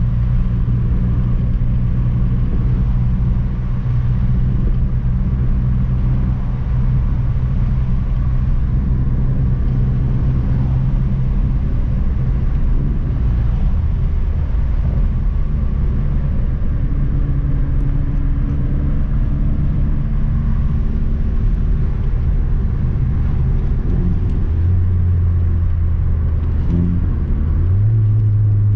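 Volkswagen Golf Mk4 GTI's 1.8-litre turbocharged four-cylinder engine and exhaust, heard from inside the cabin while driving. It is a steady drone whose pitch shifts as the revs change, dropping lower about three-quarters of the way through and rising again near the end.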